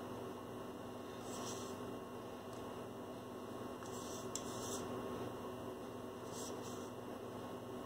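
Steady faint electrical mains hum, with a few faint soft swishes of a small paintbrush being flicked to splatter paint: about a second and a half in, near the middle, and past six seconds.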